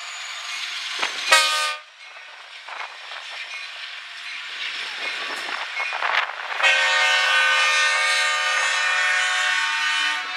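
Diesel locomotive air horn over the rolling noise of a train: a short toot about a second in, then a long sustained blast starting about six and a half seconds in and stopping near the end.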